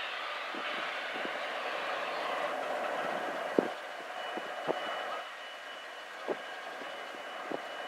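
Freight train cars rolling steadily along the rails. Four sharp metallic clicks from the wheels stand out irregularly, the loudest about three and a half seconds in.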